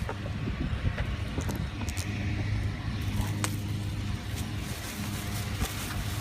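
Low, steady hum of a motor vehicle running, with a few light clicks.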